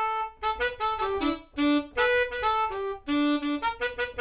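Sampled alto saxophone, a Yamaha Motif voice converted to Kontakt NKI, playing a melody of short separate notes, one note at a time.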